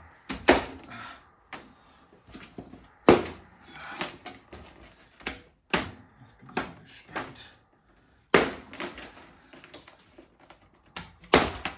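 Plastic strapping bands around a cardboard box being cut through with a knife: a series of sharp snaps as the tensioned bands give, with scraping and rustling between.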